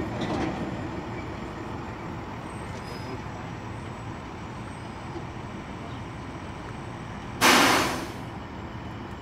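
Steady background noise, with one loud burst of hissing about seven seconds in that starts suddenly and dies away in under a second.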